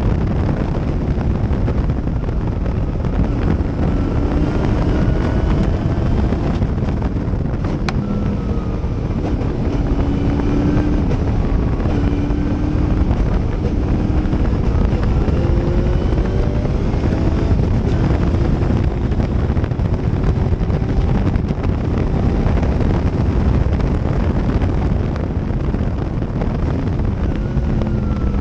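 Gentry Cobra race car's engine running at racing speed, its pitch climbing and dropping back again and again as it revs through the gears, heard from the open cockpit under heavy wind buffeting on the microphone.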